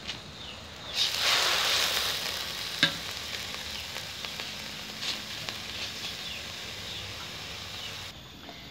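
Kenikir leaves stirred with a metal spatula in a wok of hot thin coconut milk, sizzling steadily. The sizzle is loudest for a second or two after the stirring starts, about a second in. A sharp clink of the spatula against the wok comes a little before three seconds, and the sizzle cuts off shortly before the end.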